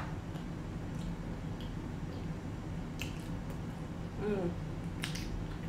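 Chewing close to the microphone: a few wet mouth clicks and smacks, and a short hummed "mm" falling in pitch a little past four seconds in, over a steady low hum.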